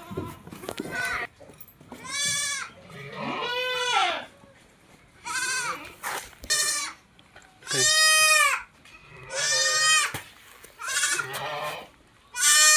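Goat bleating again and again: about seven loud calls of half a second to a second each, some falling in pitch at the end, with short pauses between.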